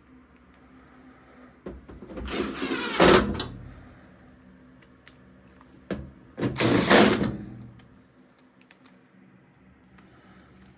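A cordless drill/driver runs in two short bursts, a couple of seconds in and again about six seconds in, driving screws into the washer's back control panel.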